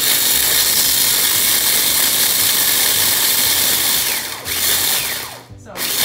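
Black+Decker mini food chopper running, its motor and blade whirring as dry wheat berries are ground inside toward flour. It cuts out for an instant about four and a half seconds in, stops again about a second later, and starts once more.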